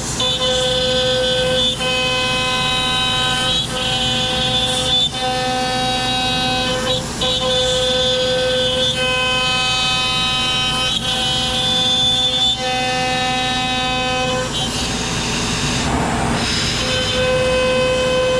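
CNC router spindle cutting ash wood, a steady high whine that dips briefly every second or two, with a rougher, noisier stretch for a couple of seconds near the end. The spindle runs at 15,300 rpm, slowed from 17,000 to make a better chip, and is not squealing so much.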